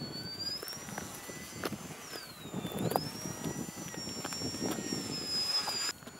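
High whine of an XK A600 DHC-2 Beaver RC plane's brushless electric motor and propeller flying overhead. Its pitch dips twice and climbs back, holds steady, then stops abruptly near the end.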